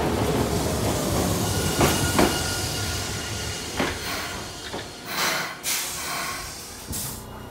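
A Hiroshima Electric Railway 3900-series tram with Toyo Denki hybrid-SiC VVVF equipment braking into a platform: a falling electric whine and running noise, with a few sharp clacks of wheels over rail joints. It dies away as the car slows, and short hisses of compressed air come near the end as it stops.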